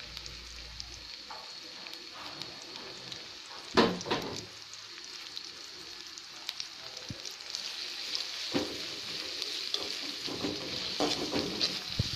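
Sliced onions sizzling in hot oil in a metal kadai, the sizzle growing louder from about halfway through. There is one sharp knock about four seconds in, and near the end a spatula scrapes and stirs the onions.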